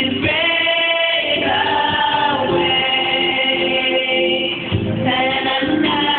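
A voice singing long held notes into a microphone over music, the pitch gliding from one sustained note to the next.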